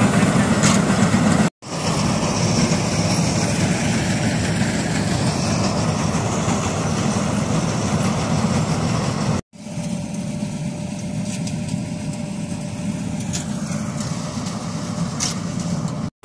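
Combine harvester running steadily while cutting paddy: a low engine drone mixed with the noise of the cutter and threshing machinery. The sound drops out abruptly for an instant twice, about a second and a half in and about nine and a half seconds in.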